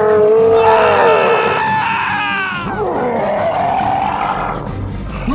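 Long, loud wailing cries, a groaning scream whose pitch slides and falls away, over background music.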